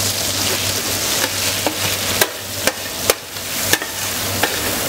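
Rice and sweet paprika frying in hot oil in a steel paella pan, a steady sizzle, with a metal skimmer stirring through it and clicking against the pan four times in the second half. This is the rice being toasted in the sofrito before the stock goes in.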